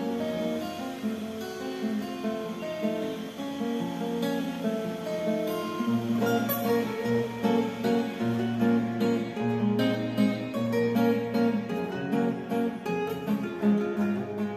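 Two steel-string acoustic guitars played together as a duet, notes plucked in a steady flowing pattern. About six seconds in, low bass notes join and the picking grows busier.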